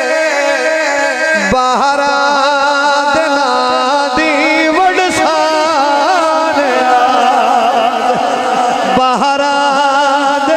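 Man singing a Punjabi devotional song in praise of Ali into a microphone, his voice gliding and ornamented over a steady held musical drone.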